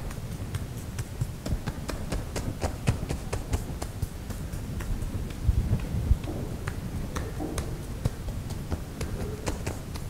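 Fingertips tapping on the legs through trousers: a quick, irregular patter of light taps, several a second, working down from the thigh toward the lower leg.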